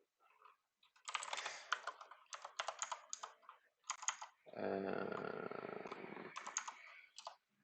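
Computer keyboard typing: quick runs of keystrokes, with a steady low buzzing tone of about two seconds in the middle, after which the keystrokes resume.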